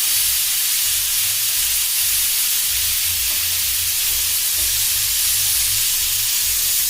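Pressure cooker whistle: a loud, steady hiss of steam jetting out past the weight valve, with an uneven low rumble beneath. It cuts off suddenly near the end. The cooker has come up to pressure, and this single whistle is the signal that the biryani rice is done.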